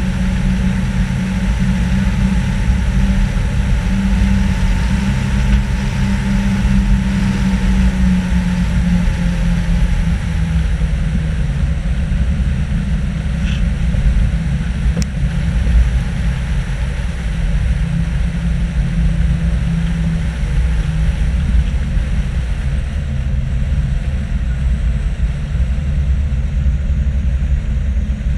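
Nissan Patrol GR driving steadily on a paved road: a continuous low engine drone mixed with tyre and wind noise, heard from a camera mounted on the outside of the vehicle.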